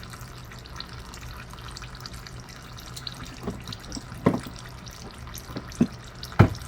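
Old engine oil trickling steadily from a generator's drain hose into a drain pan. A few clunks of objects being handled come over it, the loudest about six and a half seconds in.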